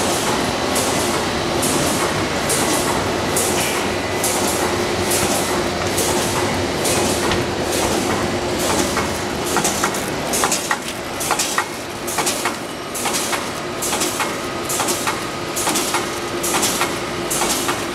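Reel-fed die cutting machine running, its cutting stroke giving an even, repeating pulse a little faster than once a second over a steady hum. Sharper clicks join in from about halfway.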